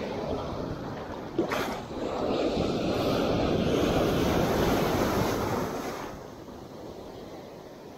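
Sea waves surging and washing in on the shore, one surge swelling about two seconds in and falling away about six seconds in, with a brief sharp knock just before it.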